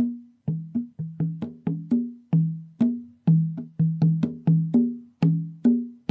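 Ngoma drum played in a lively rhythmic pattern, about three strokes a second, mixing a low tone and a higher tone.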